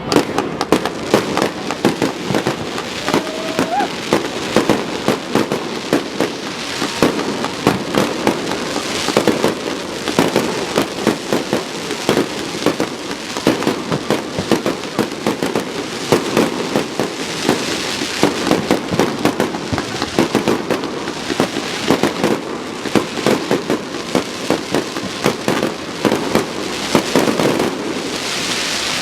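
Fireworks going off in a dense, continuous run of bangs and pops, many a second, with crowd voices underneath.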